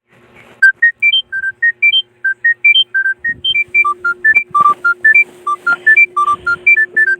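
Smartphone ringtone playing: a quick melody of short, clear high notes, about four or five a second, over a steady low held tone that grows louder about halfway through.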